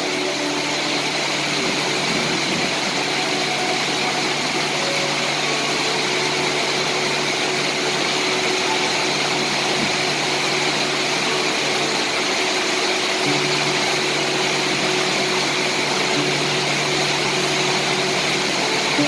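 Steady rainfall, a dense even hiss with no pauses, with faint steady low tones humming underneath.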